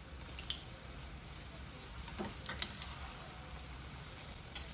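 Potato and buckwheat-flour pakoras frying in hot oil, a steady faint sizzle, with a few light clicks.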